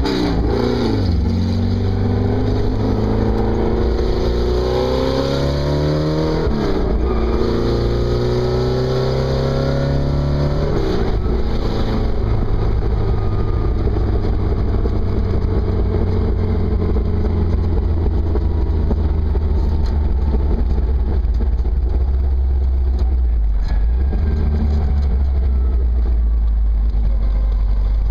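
Porsche 914 2.0-litre flat-four on dual Weber carburettors, heard from the cockpit of a Ritter VW buggy under way: the engine revs up, drops at a gear change about six seconds in, revs up again to another shift at about eleven seconds, then runs on at a steadier, slowly easing pace.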